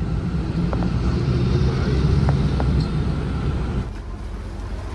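Motor vehicle engine running amid road traffic, louder through the middle and dropping away about four seconds in.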